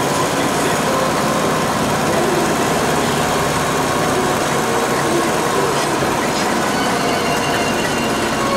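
Mercedes-Benz 208 D van's diesel engine running steadily, heard from inside the cab.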